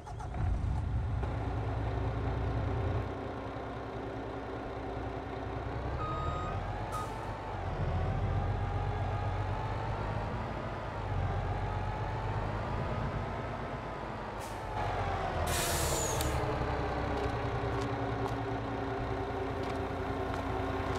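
Truck engine running, its pitch rising and falling slowly as it is revved up and eased back. About fifteen seconds in there is a short, sharp air-brake hiss.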